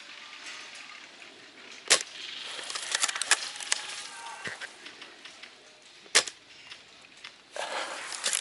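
Airsoft gunfire: two loud, sharp single shots about four seconds apart, with quick runs of lighter clicks and rustling between and after them.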